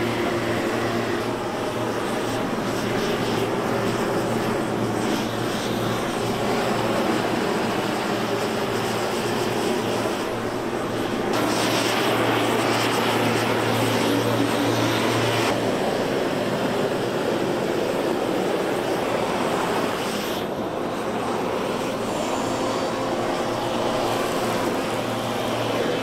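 Hand-held propane torch burning with a steady roaring hiss as its flame is played over a pine tabletop to scorch it. The hiss grows sharper for a few seconds about eleven seconds in, over a constant low hum.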